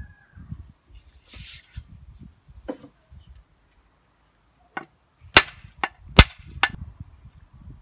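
Sharp metallic knocks of hand tools being struck: a few scattered taps, then a quick run of four louder strikes about two thirds of the way in, some with a short ring.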